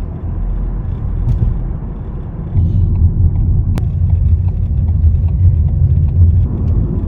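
Low, steady road rumble of a car driving, heard from inside the cabin, growing louder about two and a half seconds in.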